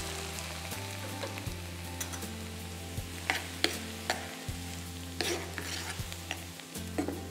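Diced apple sizzling in a nonstick frying pan with a little water, while a spatula stirs it, clicking and scraping against the pan several times.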